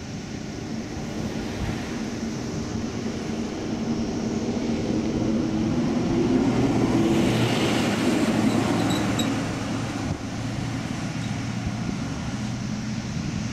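Steady rush of water pouring from the Saylorville Dam outlet at maximum flow, with a car passing on the road and growing louder about halfway through, then fading.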